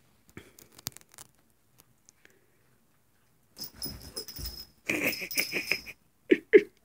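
A dog making quick, rhythmic wheezing breaths, about six a second for about a second, followed by two short, sharper sounds near the end.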